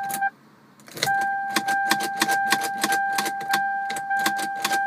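A car's key-in-ignition warning tone sounds steadily, cuts out about a quarter second in and comes back about a second in, as the key is pulled and pushed back into a sticking ignition lock cylinder. Over it come rapid metallic clicks and jangling as the key is jiggled and the key ring swings.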